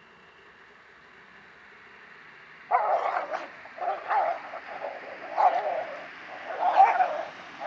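Male dogs in a scuffle, barking and yelping in a run of short, loud bursts that begins about three seconds in.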